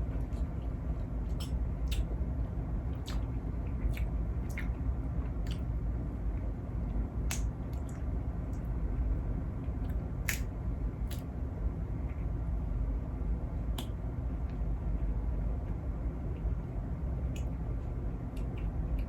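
Close-up eating sounds from a seafood mukbang: scattered soft mouth clicks and smacks of chewing, about one every second or two, over a steady low background hum.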